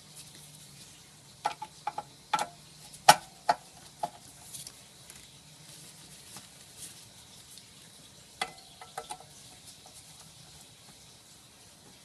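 Sharp clicks and light knocks of hand work with a screwdriver on a small metal idle air bypass valve as its screws are loosened and its housing turned; a cluster of them a second or two in, and a shorter run of quick clicks near the middle, over a faint steady hiss.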